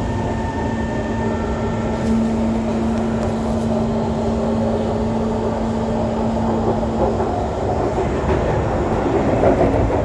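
SMRT C151 MRT train running, the rumble of its wheels on the track steady throughout. A steady hum runs with it and stops about seven and a half seconds in.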